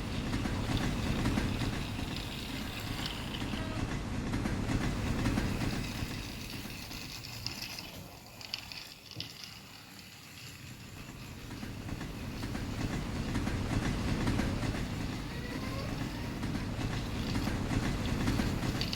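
A small toy train locomotive running on its track with a steady motor whirr and wheel rumble. It fades about halfway through and then grows louder again as it comes back around.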